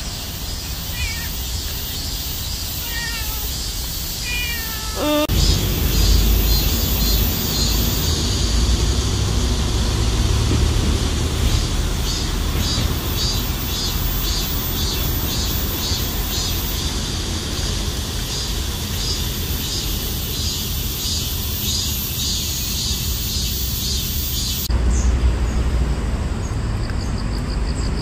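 A stray cat meows several short times in the first five seconds. From about five seconds in, a steady outdoor background takes over, with a low rumble and a fast, high, rhythmic pulsing.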